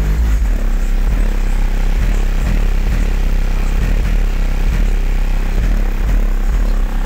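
Car audio system in a compact pickup truck playing bass-heavy music at very high volume, the deep bass pulsing about twice a second.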